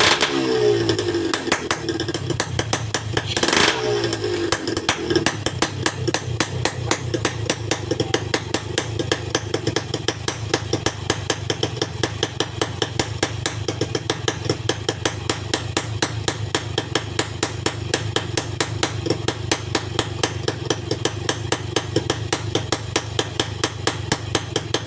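Motorcycle engine blipped twice in the first few seconds, then running at idle with an even, lumpy beat of sharp pulses.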